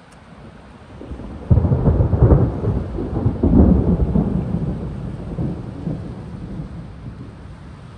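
Thunder: a low rumble builds, then a sudden loud clap about a second and a half in, rolling on with a second peak and slowly fading away.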